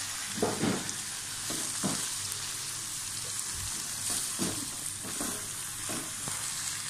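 Shredded chicken and carrot sticks sizzling in ghee in a non-stick kadhai, stirred with a silicone spatula: a steady sizzle broken by irregular soft scraping strokes of the spatula.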